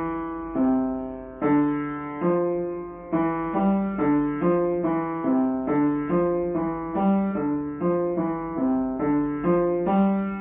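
Upright piano played with both hands: a technique exercise of separate notes and chords, slower at first and then about two to three notes a second, closing on a chord near the end that is held and rings on.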